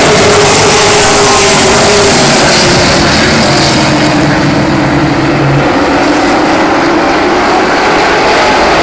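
Racing super trucks running at full throttle around a short oval track, loud, with several engines' pitches wavering over one another. The pack sweeps past close by, and from about four seconds in the sound dulls as the trucks move away down the far straight.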